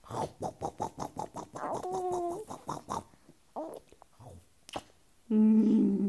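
A baby laughing in quick, breathy, snorting gasps while being nuzzled, with short coos in between. Near the end comes one louder, drawn-out vocal sound that falls slightly in pitch.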